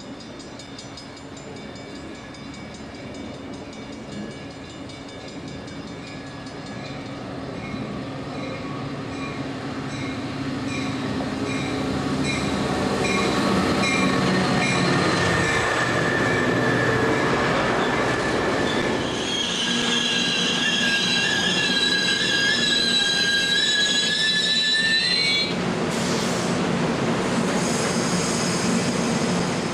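Metra commuter train, a diesel locomotive hauling bilevel cars, pulling in past the platform. Its rumble grows louder for the first half as it approaches and passes. Past the middle, the wheels squeal in several high steady tones for about six seconds as the train slows, then stop abruptly, leaving the rolling of the cars.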